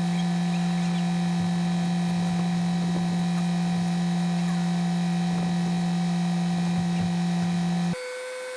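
Excavator engine running with a loud, steady hum. Near the end it cuts off abruptly and gives way to a quieter, higher steady tone.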